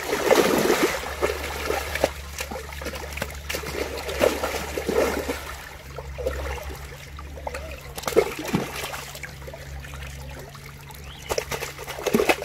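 Water splashing as a large fish thrashes in shallow muddy water and is grabbed by hand: loudest in the first second, then scattered splashes and dripping as hands work in the water and lift the fish out. A low steady hum runs underneath.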